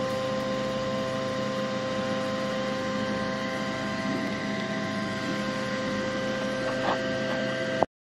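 Steady machine hum made of several unchanging tones over a low rushing noise, cutting off suddenly near the end.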